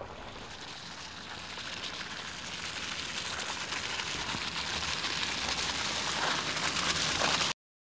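Bentley Bentayga's tyres hissing and crackling through wet mud and gravel as it approaches, growing steadily louder, then cutting off abruptly near the end.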